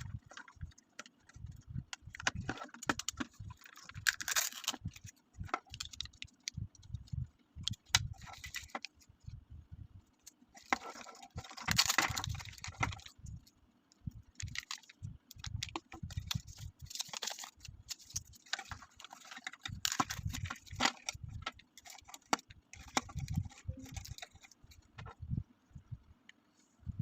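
Handling noise from unboxing a toy: packaging rustling and crinkling in spells, with scattered clicks and knocks of small pieces being handled.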